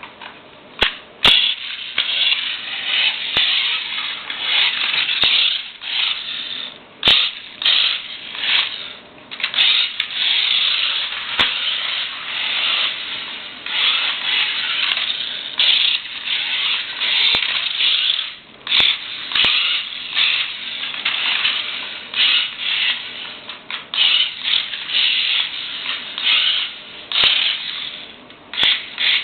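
Radio-controlled car running in bursts of throttle: a whirring that swells and drops every second or two, with a few sharp clicks.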